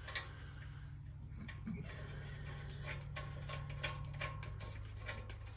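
Faint steady low hum with a few light, scattered clicks and taps.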